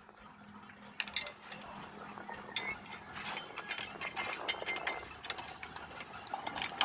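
Manual chain hoist being worked: irregular clicking of its ratchet pawl and rattling chain links, starting about a second in.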